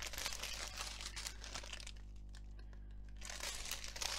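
Strip of small plastic bags of diamond-painting drills crinkling as it is handled, in two bouts: through the first second or so and again near the end.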